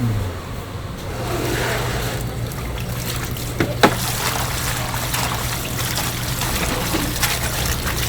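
Liquid trickling and pouring over a steady low machine hum, with two sharp clicks near the middle.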